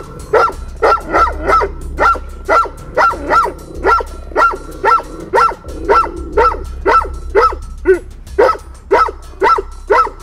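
A dog barking over and over in an even rhythm, about two barks a second, with a thin steady high tone underneath.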